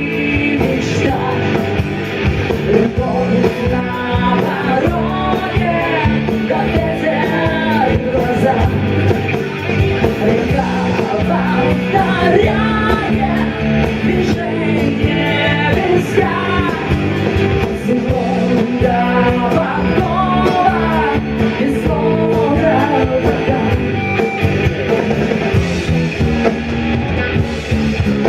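Background music with a singing voice, a song with a full band behind it.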